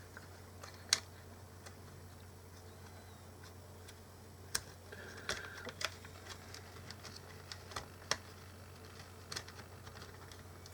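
Scattered small clicks and taps of plastic parts as a mini Bluetooth speaker's casing is worked back together, a handful of separate clicks over a low steady hum.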